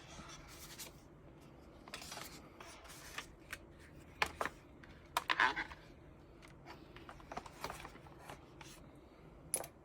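Keystrokes on an ASUS ROG Strix Scope RX keyboard with red linear ROG RX optical switches, typed irregularly, with a quick run of several presses a little past halfway.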